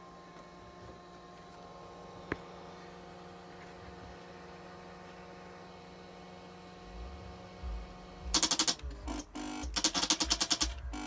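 Faint steady electrical hum with a single click about two seconds in. From about eight seconds in, the 2004 Suzuki GSX-R1000's starter solenoid chatters in loud, rapid bursts of clicking instead of cranking the engine: the no-start fault where the electrics dim and pulse, which the owner sees with a full battery.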